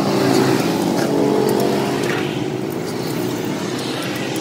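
A vehicle engine running steadily, with faint high clicks over it.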